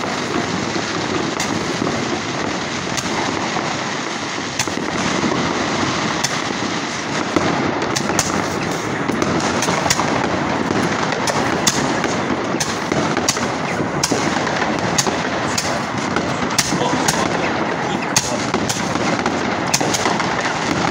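Handheld Roman candle firing: a continuous loud fizzing hiss from the burning tube with sharp pops and crackles, the pops coming thicker and faster in the second half.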